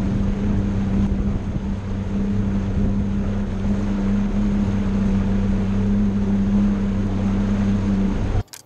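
Bass boat's outboard motor running steadily at speed, a steady hum under wind buffeting the microphone and water rushing past the hull. It cuts off abruptly near the end.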